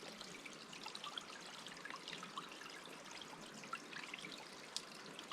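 Faint water trickling, with small scattered drips.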